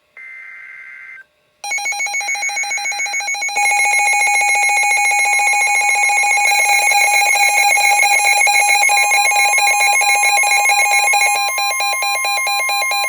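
Emergency Alert System alert tones. First comes a one-second burst of screechy digital header data. Under two seconds in, a loud, rapidly pulsing electronic alarm tone starts; it grows louder about two seconds later and holds steady as a harsh two-tone attention signal.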